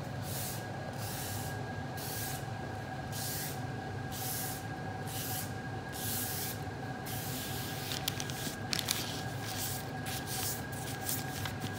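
Fine 1200-grit sandpaper drawn lightly back and forth over lacquered leather, each stroke a soft hiss, about one to two strokes a second, de-nibbing the dried lacquer coat. The strokes stop after about seven seconds, leaving a few light clicks over a steady low hum.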